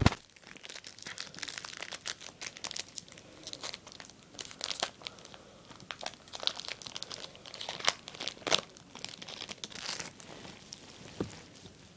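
Foil wrapper of a Yu-Gi-Oh! booster pack being torn open and crinkled by hand: an irregular run of soft crackles and rustles.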